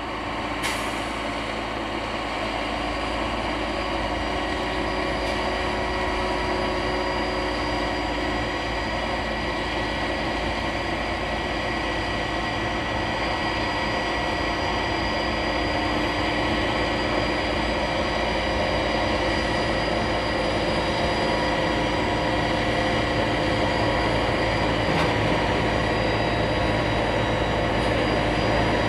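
Street snow-removal blower running steadily, a dense mechanical rumble with high held whines, growing slowly louder as it approaches.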